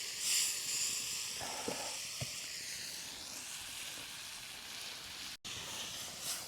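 Chicken and spices frying in a pan, a steady hissing sizzle that swells a little now and then.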